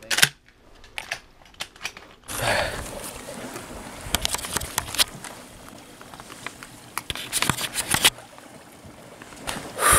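Handling noise from a camera being moved and held close: a sharp knock at the start, a few clicks, then rustling and scattered clicks over a steady haze of noise.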